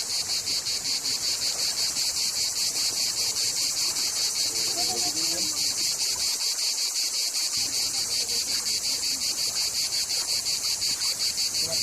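Insects chirring in a steady, rapid, high-pitched pulsing chorus, with a faint voice briefly about five seconds in.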